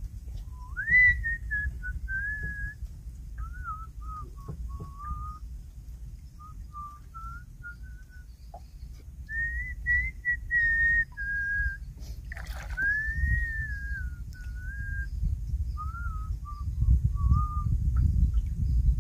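A person whistling a wandering tune: single clear notes that slide up and down, in short phrases with pauses between them. A low rumble runs beneath and grows louder near the end.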